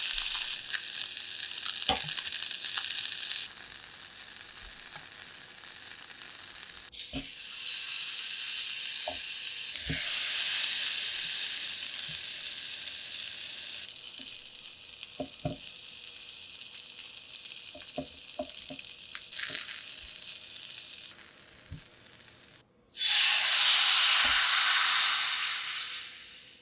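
Fish and vegetables sizzling in a hot stainless-steel frying pan, with scattered light clicks of a metal spoon and tongs against the pan. Near the end, coconut milk poured into the hot pan to deglaze it gives the loudest hiss, which dies away.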